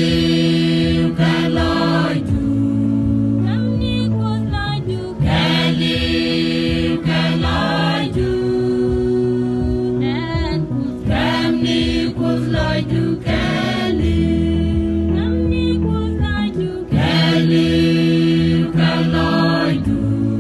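Mixed choir of young men and women singing a Christian gospel song together in harmony, in phrases a few seconds long.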